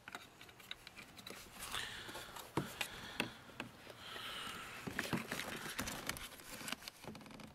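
Scattered clicks, taps and rubbing of plastic and rubber as a replacement car side-view mirror is worked into place on the door and its wiring harness is fed through the plastic door trim.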